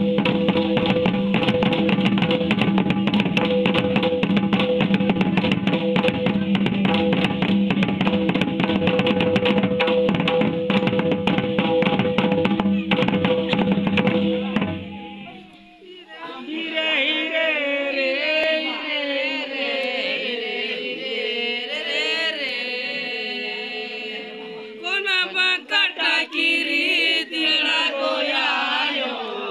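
Folk drumming on hand-played barrel drums and a stick-beaten kettledrum, a fast dense beat over a steady held tone. About halfway the drumming stops and a group of voices sings in a chant. The drum strokes come back under the singing near the end.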